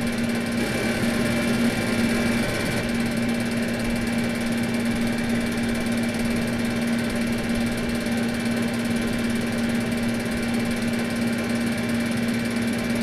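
Air conditioner motor running steadily: a constant low hum with an even whir of air over it.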